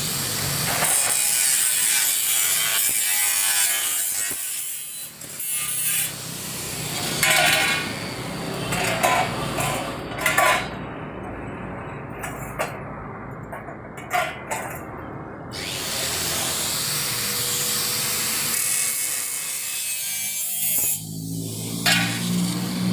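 Electric angle grinder cutting through thin light-gauge steel channel with a harsh, hissing grinding noise, in several passes with short pauses between them.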